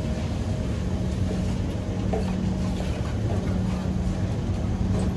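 Inside an SMRT Kawasaki C151 metro train fitted with permanent-magnet (PMSM) traction motors: a steady low rumble with a hum held on one low pitch.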